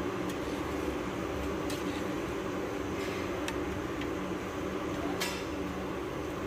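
Steady mechanical kitchen hum with a low drone, broken by a few sharp clicks of a metal slotted spatula knocking against the pot as the mutton pieces are stirred, the loudest a little after five seconds in.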